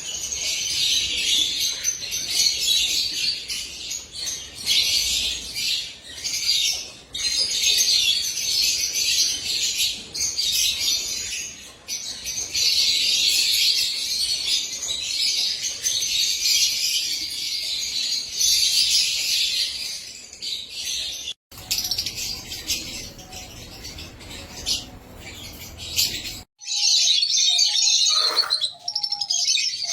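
A colony of lovebirds chattering and chirping together in a dense, continuous high-pitched din. It breaks off abruptly twice, about 21 and 26 seconds in, and a few lower repeated call notes come through near the end.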